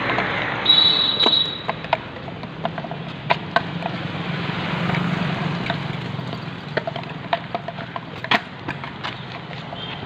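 An empty plastic bottle being kicked along an asphalt road: irregular sharp knocks and clatters, with footsteps and passing street traffic underneath. A brief high-pitched tone sounds about a second in.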